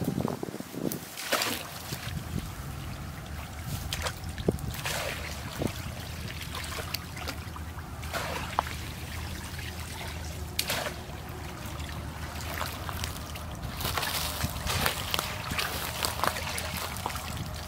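Shallow stream water splashing and trickling as a woven basket is pushed down into it and lifted out, water draining through the weave, in irregular short splashes that come thicker near the end.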